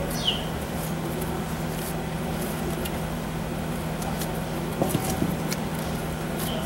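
Soft sticky tearing and squishing of bread dough being pulled apart by hand in a stainless steel bowl, with a few light knocks about five seconds in, over a steady low hum.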